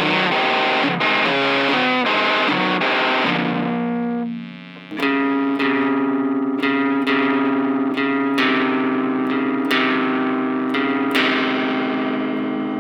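Distorted electric guitar music: a fast riff of quick changing notes, dropping away briefly about four seconds in, then sustained chords struck repeatedly and left to ring.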